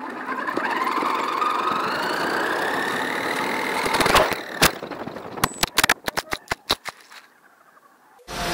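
Electric RC truck's motor whining and rising in pitch as it speeds up over rough ground, then a loud knock about four seconds in followed by a run of sharp clicks and knocks. After a moment of quiet, intro music starts right at the end.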